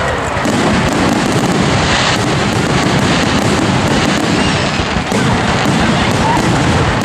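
Aerial fireworks bursting in quick succession: a dense, unbroken barrage of bangs and crackle.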